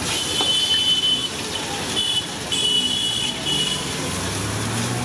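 Street-stall wok cooking: a steady hiss from the gas-fired wok burner and frying oil, with a high thin tone that sounds three times in the first four seconds and a low hum near the end.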